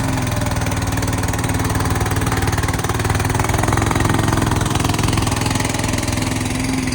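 A CFG Industrial MX15R mini excavator's 420 cc single-cylinder gasoline engine running steadily, getting a little louder about halfway through and easing back.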